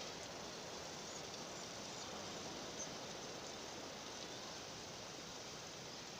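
Steady seashore ambience: an even hiss of sea wash with no distinct events.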